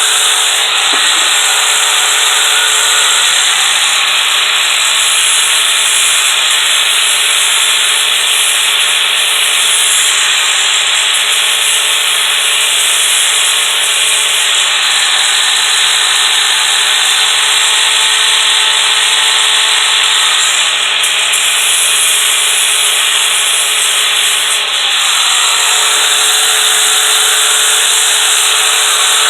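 Powered sanding disc grinding steadily against the steel rails of a Stihl chainsaw guide bar, dressing off the burr, with the tool's motor humming underneath.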